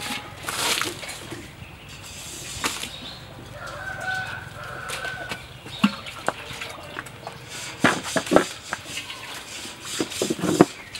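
Chickens clucking with a brief flutter of wings near the start. Several sharp knocks follow as a clay mortar and wooden pestle are set down on a wooden table.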